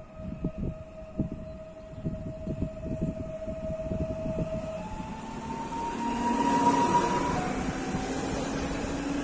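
Electric multiple unit running in along the platform and slowing. Its electric drive whines: a steady tone gives way about halfway through to shifting, partly rising tones, and the sound grows louder as the train draws alongside. Low thumps come in the first few seconds.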